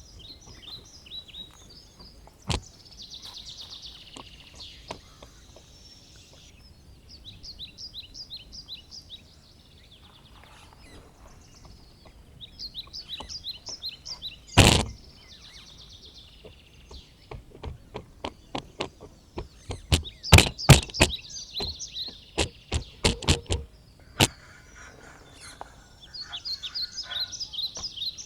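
Small birds chirping and trilling in repeated high phrases. About halfway through there is one loud sharp knock, and later a quick run of sharp knocks or taps, the loudest sounds here.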